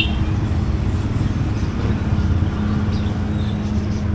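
A motor vehicle's engine running close by: a steady low rumble with a held hum.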